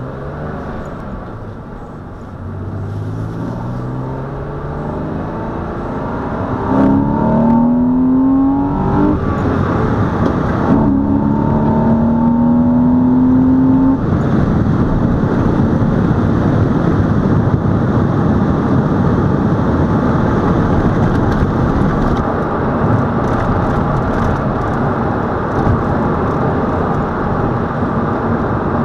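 2003 Porsche Boxster S flat-six engine accelerating, heard from inside the cabin. Its pitch climbs through the gears, with a break for a gearshift about nine seconds in. From about halfway on there is steady tyre and wind noise at cruising speed.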